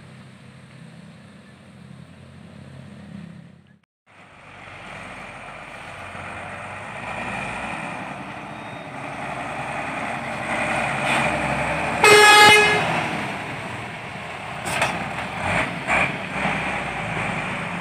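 A road-rail rescue truck's diesel engine running and growing louder as it drives past, with one short horn blast about two-thirds of the way in, the loudest sound. It opens on a quieter steady engine hum that cuts off briefly about four seconds in.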